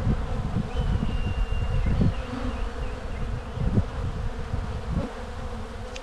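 Honey bee colony buzzing steadily around an opened hive, with several low thumps.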